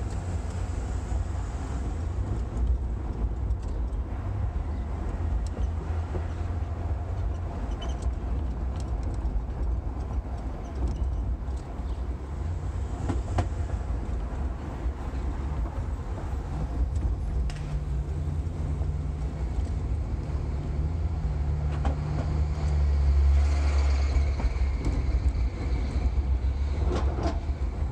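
Low, steady engine and road rumble inside a Ford Crown Victoria's cabin as its V8 drives in stop-and-go city traffic. The sound swells for a few seconds about two thirds of the way through.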